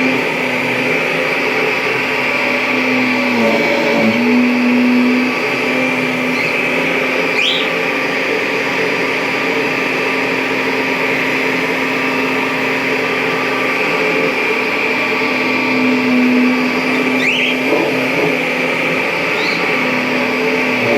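Kirby G5 upright vacuum cleaner running steadily with a constant motor hum. Its pitch sags briefly a few seconds in and again near the end.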